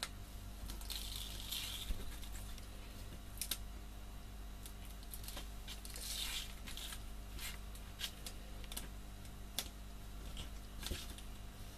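White backing strips being peeled off tape on a cardboard hinge: a few longer hissing rips, about a second in and again around six seconds, among small crinkles, taps and clicks of the card and paper being handled.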